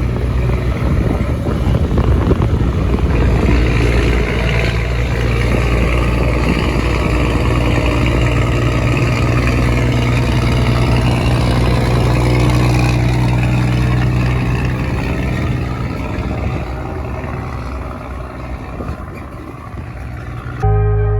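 Scania truck's diesel engine running loud through a straight-pipe exhaust, a deep steady rumble that eases off a little near the end. Music cuts in abruptly just before the end.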